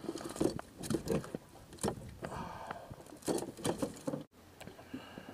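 Handling noises from a mesh landing net with a trout in it: irregular clicks, knocks and rustles as the fish is worked out of the net on the boat deck.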